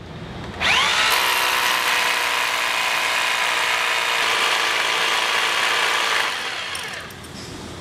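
Corded rotary hammer drilling into a concrete floor. The motor spins up about half a second in, runs steadily under load for about five seconds, then winds down near the end.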